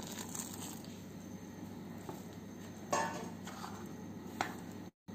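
A spoon stirring rice flour and hot water into a dough in a plastic bowl: soft scraping, with a few clicks of the spoon against the bowl, the loudest about three seconds in. A steady low room hum runs underneath.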